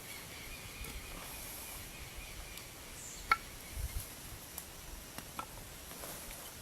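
Outdoor background ambience: a steady hiss with a faint high steady tone over the first few seconds, a single sharp click about three seconds in, and a couple of soft low thuds just after.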